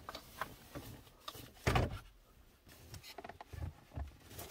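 Plastic dash trim clicking and knocking as the loosened centre bezel with the climate control unit is lifted out of the dash and handled, with the loudest knock just under two seconds in and a few lighter taps later.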